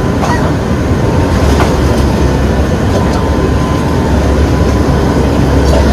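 Hurricane-force wind blowing hard: a loud, steady rushing roar with deep rumbling buffeting on the microphone.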